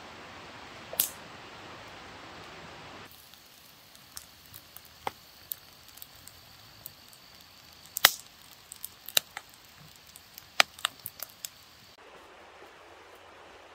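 Scattered sharp clicks and cracks at irregular intervals over a faint steady hiss, the loudest about eight seconds in. The background hiss drops abruptly about three seconds in and changes again near the end.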